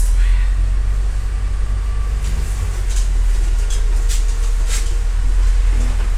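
MAZ-105 city bus heard from inside the passenger cabin as it runs: a steady low engine and drivetrain rumble, with a few sharp clicks and rattles from the interior fittings.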